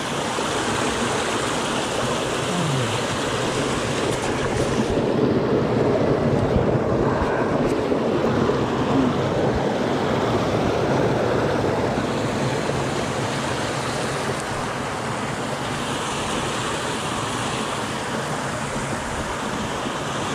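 Steady rush of a mountain stream's flowing water, swelling a little midway.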